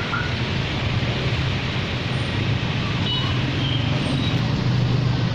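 Street traffic noise: a steady wash of sound with a low engine hum underneath.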